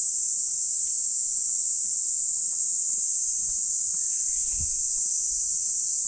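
Steady, high-pitched chorus of insects calling without a break, with a few faint low knocks beneath it.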